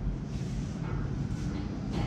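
Hands rubbing over hair and scalp in a head massage, with a brushing swish about once a second over a steady low rumble.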